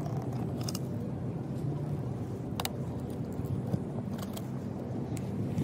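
Robot manipulator arm's servo motors running with a steady low hum as the arm moves, with a few sharp clicks, about one or two a second at most.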